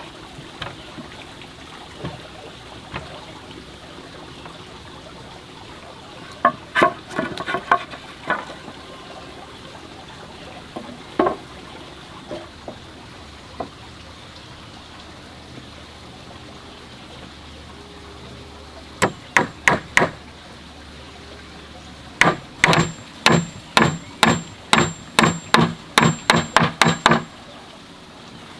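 Hammer driving nails into wooden boards: scattered blows and short groups of strikes, then a quick run of about fifteen blows near the end, two or three a second.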